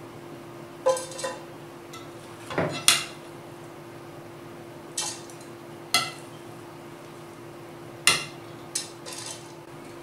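A spoon knocking and scraping against a glass mixing bowl and a steamer pot as a rice-and-vegetable mixture is scooped into a couscoussier. There are about nine sharp clinks at irregular spacing, the loudest about three seconds in, over a faint steady hum.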